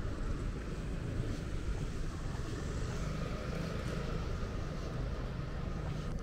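Steady city-street ambience dominated by a low rumble of road traffic.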